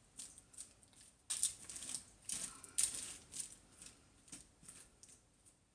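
Silicone spatula pushing sliced steak and vegetables across a foil-lined sheet pan: irregular scrapes and foil crinkles, a few a second, thinning out near the end.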